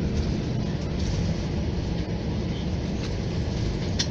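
Steady low rumble inside a jet airliner's cabin as the plane taxis after landing: engine noise and the wheels rolling over the taxiway.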